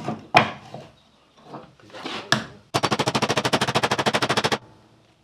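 New bearing race being driven into a Land Rover rear hub with an old race used as a drift: two sharp metal knocks, then, about two and a half seconds in, a rapid, even burst of hammering lasting about two seconds.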